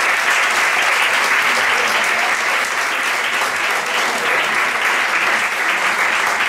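Audience applauding steadily: many people clapping together, a dense, even patter that holds at the same level throughout.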